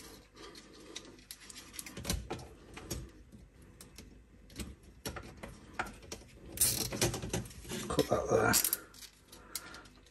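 Small clicks and taps of a nylon cable tie and a plastic switch back box being handled, as the tie is threaded around two plastic water pipes. A louder run of rustling and clicking comes about seven to eight and a half seconds in.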